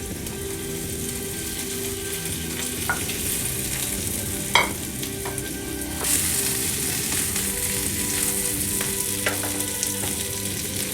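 Shallow-fried chicken pieces sizzling and being stirred in a pan with cooked onion, garlic, ginger and green capsicum. The sizzle grows louder about halfway through, with a few knocks against the pan.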